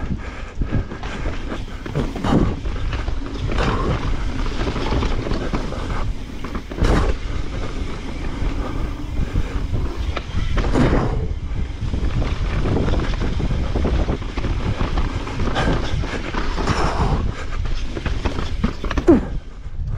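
Mountain bike riding down a rough trail: a steady rumble of tyres on dirt and wind on the rider's camera microphone, broken by frequent knocks and rattles over bumps.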